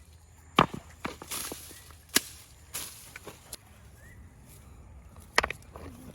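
A series of irregular sharp knocks and snaps, about eight over six seconds, the loudest just after the start and near the end.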